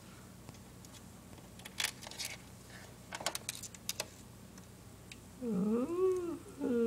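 A cat meowing twice near the end, two long drawn-out calls, the first rising and falling and the second held level before dropping. Before that come a few light clicks and taps of small parts being handled.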